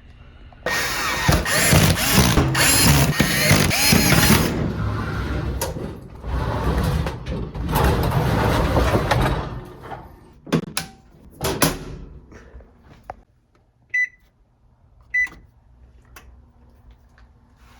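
Loud handling and clattering noise in two long stretches, then a few sharp knocks, then two short electronic beeps from an oven's control panel about a second apart.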